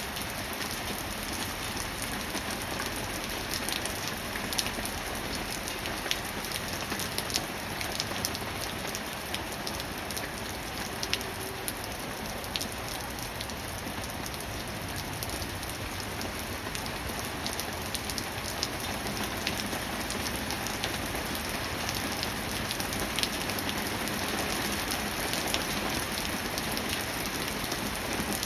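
Steady rain falling, a constant hiss with many individual drops ticking sharply on a hard surface.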